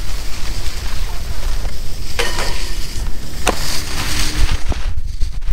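Wind buffeting the microphone of a camera skiing fast over packed snow, with the hiss and scrape of skis on the snow and a few sharp clacks.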